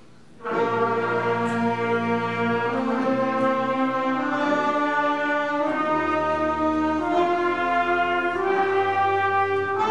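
Middle school concert band playing a warm-up of sustained chords together, entering about half a second in and moving to a new held chord every second and a half or so.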